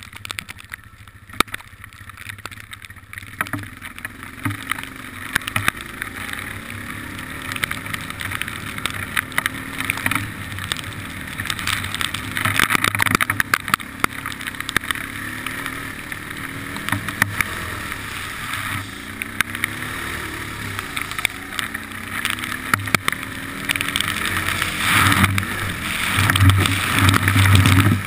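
Four-wheeler ATV engine running under throttle, its pitch rising and falling as the rider speeds up and eases off, with water splashing up from the tyres through puddles and wind buffeting the microphone. It grows louder toward the end.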